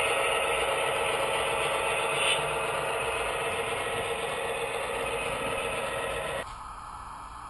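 HO-scale model freight hopper cars rolling past on the track, a steady rattle of small metal wheels on rail. It drops off sharply about six seconds in as the last car goes by.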